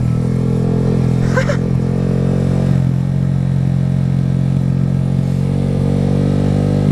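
Honda Grom's 125 cc single-cylinder engine running steadily through a loud aftermarket exhaust with its baffle removed, heard from the bike while riding.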